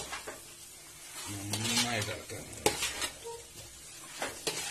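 Steel spoon stirring chicken roast in a large metal pot. It scrapes and knocks sharply against the pot's side several times, over a light sizzle from the hot masala.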